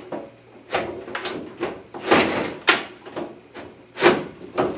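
Sheet-metal front cover panel of an electric furnace being fitted back into place: a run of irregular metal knocks and scrapes, about six of them.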